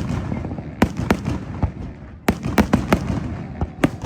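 Fireworks bursting: a rapid, irregular string of sharp bangs, at times several a second, with a low rumble carrying on between them.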